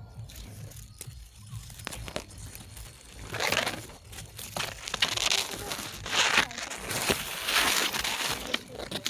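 Grass rustling in gusts of wind, coming in repeated surges of about a second each from about three seconds in, over a low steady rumble.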